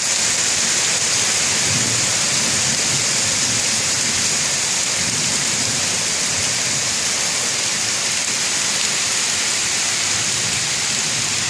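Heavy summer thunderstorm rain pouring steadily, with a low rolling thunder rumble underneath.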